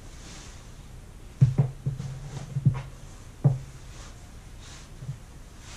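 Stiletto heel of a black leather over-the-knee boot knocking on the floor several times as the boot is pulled on and set down. A faint rustle at the start, then four sharp knocks close together about halfway in, and one softer knock near the end.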